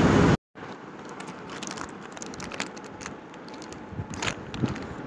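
Loud street traffic noise that cuts off abruptly a moment in. Then quieter close handling noise of a sweet and its paper sweet-shop packaging: soft rustling with scattered light clicks and crackles.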